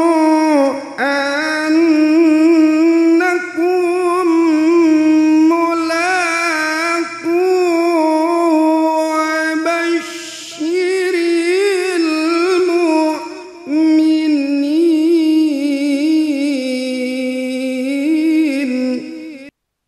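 Qur'an recitation (qiroah) chanted by a single voice in long, ornamented melodic phrases with wavering held notes and short pauses for breath. It stops shortly before the end.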